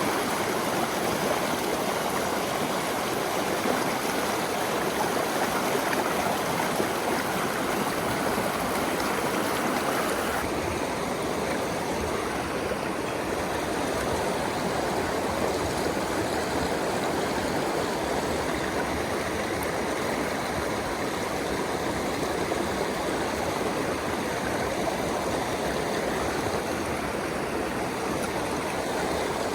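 Mountain stream water rushing steadily. About ten seconds in the sound changes abruptly to a deeper rush with less hiss.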